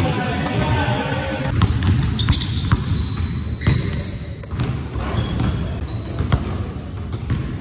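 A basketball bouncing on a hardwood gym floor: a string of sharp bounces at uneven intervals, the sound of dribbling and ball handling on the court.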